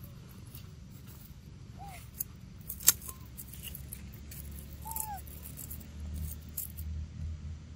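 Dry leaf litter crackling and rustling in scattered clicks, with one sharp snap about three seconds in. A few short chirping calls that rise and fall come about two and five seconds in.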